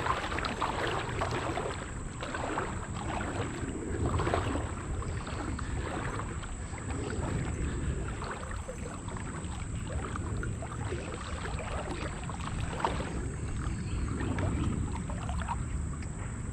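Someone wading through a shallow creek, with water sloshing and splashing unevenly around the legs.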